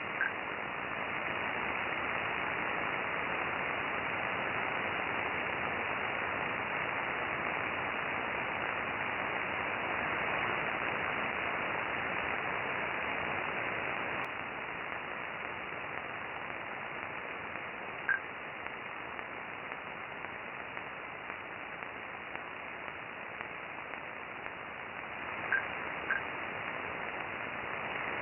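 Radio receiver hiss with an unidentified clicking signal: a few short, high clicks stand out from the static. One comes at the very start, one about two-thirds of the way through, and two close together near the end, with fainter ticks between them.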